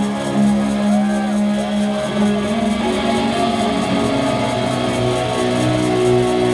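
A rock band playing live, with held chords that shift about two seconds in and a low bass note coming in near the end.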